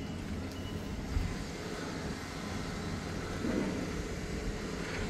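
Kubota KL380's naturally aspirated four-cylinder diesel engine idling with a steady low hum.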